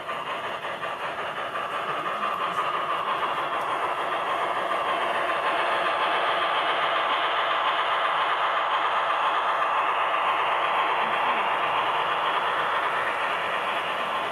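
Model C62 steam locomotive with a DCC sound decoder running past with its passenger cars, a dense clattering rattle of the train on the track. It grows louder over the first few seconds as the train comes close, stays loudest through the middle and eases slightly near the end.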